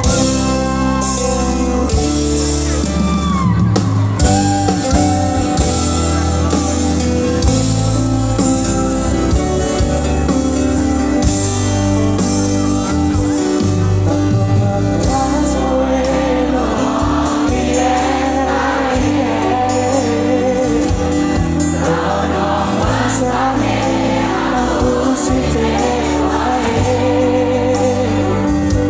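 Live band of electric guitars, bass and drums playing a pop song through the stage sound system, heard from within the audience, with singing over it. The singing grows stronger about halfway through.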